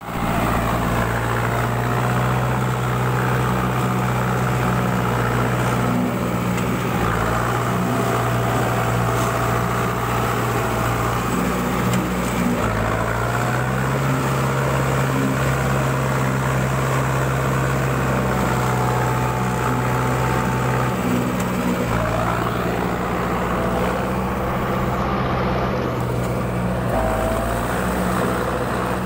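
Compact 4WD tractor's diesel engine running steadily under load as it drives through deep mud, the engine pitch rising slightly a little before halfway and dropping back about two-thirds of the way in, with a faint higher whine coming and going.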